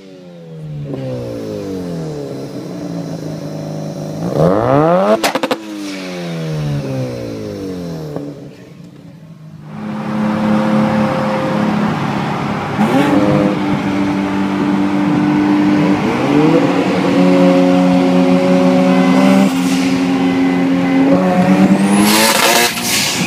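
Sports car engines revving, heard from inside one of the cars: a couple of rev blips that rise and fall in pitch, then steadier running whose pitch rises in several steps. A loud burst of noise comes near the end.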